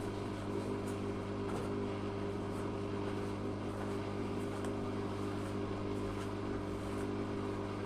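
Zanussi FA623 washing machine running with a steady hum, and faint light ticks about once a second.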